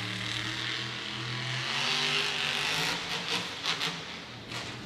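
Monster truck's supercharged V8 running as it drives, getting louder about two seconds in, with several short sharp pops in the second half.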